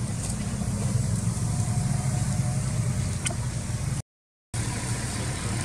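Steady low engine rumble of a vehicle idling nearby. The sound drops out completely for about half a second a little after four seconds in.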